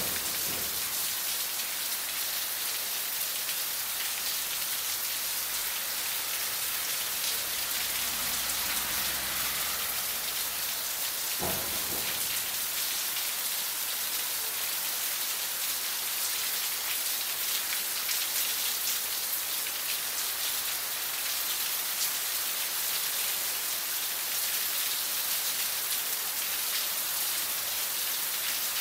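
Heavy rain falling steadily onto a street covered in running water, a constant hiss.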